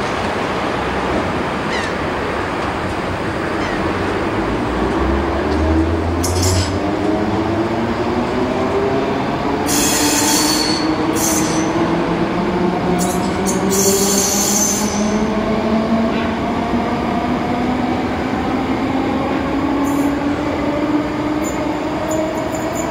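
DSB S-train electric multiple unit pulling out and accelerating, its traction motors giving a whine that keeps rising in pitch. Several short high-pitched noises come in the first half.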